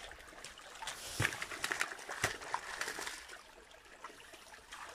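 Water trickling in a shallow muddy channel, with a few sharp slaps and splashes, the loudest about a second in and another a little after two seconds.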